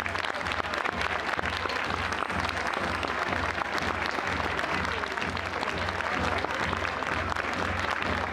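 Large crowd applauding: dense, steady clapping throughout, with a faint low beat underneath.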